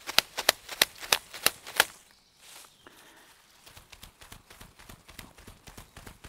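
Loose bunch of fresh grass blades snapping and tearing as it is pulled apart by hand: a run of sharp snaps, about three a second, for the first two seconds. After that come quieter rustling and faint creaks as a braided grass rope is pulled hard and holds without breaking.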